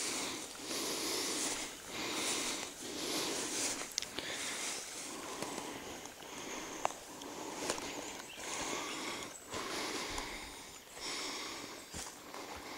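Footsteps swishing through long grass and scrub, a rhythmic brushing about once a second, with a few sharp twig snaps.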